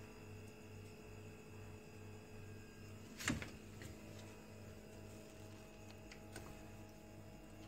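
Faint steady electrical hum with a low drone pulsing about three times a second, broken by one sharp click about three seconds in and a few fainter ticks later.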